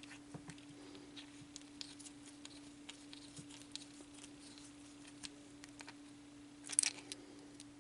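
Small plastic model parts being handled and fitted together: scattered light clicks and taps, with a short scrape near the end, over a steady low electrical hum.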